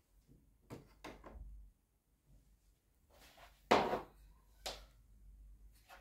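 A few light knocks early, then a louder thump about four seconds in and another knock a second later, like objects being handled and set down.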